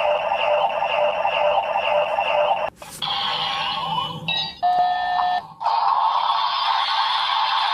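Electronic transformation-belt sound effects: a ringing, looping standby tone that breaks off briefly about three seconds in, gives way to a short run of different steady electronic tones, and then starts up again.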